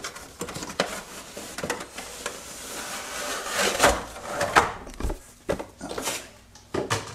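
Cardboard box being opened and a molded plastic tray slid out and set down: rubbing and scraping of cardboard and plastic, with a series of sharp knocks and taps in the second half.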